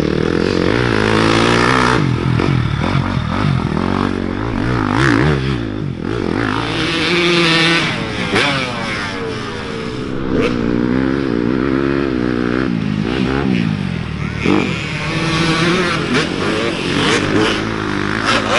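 Several dirt bike engines revving up and down at once, their pitches rising and falling and overlapping, as riders push through mud, with a few short knocks.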